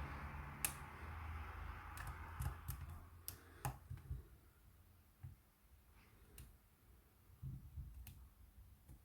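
Metal hook pick and tension wrench working inside a cabinet wafer lock: a scratchy scraping in the first couple of seconds, then a dozen or so sharp, irregular clicks of the pick against the wafers and warding, growing sparser and fainter toward the end. The hook is catching on the lock's warding.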